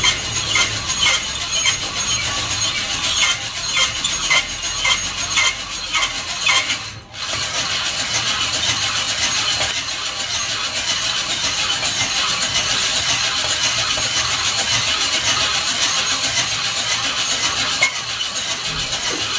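Coffee beans tumbling and rattling in a hand-cranked perforated drum roaster turned over a burner, with a steady hiss and a light tick about twice a second during the first six seconds. The roast is in its browning stage, before first crack.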